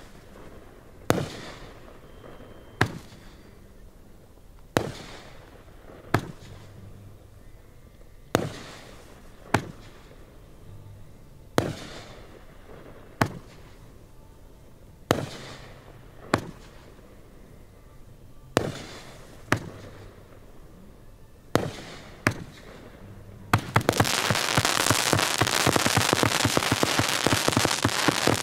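Fireworks display: aerial shells bursting one after another, a sharp bang every second or two, some trailing off in an echo. About 23 seconds in, a dense run of rapid crackling pops takes over.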